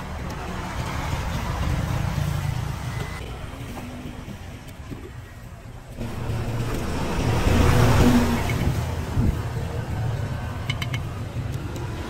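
Road traffic running steadily, with a vehicle passing that swells and fades about eight seconds in. A few light clinks of a metal ladle against plastic sauce tubs come near the end.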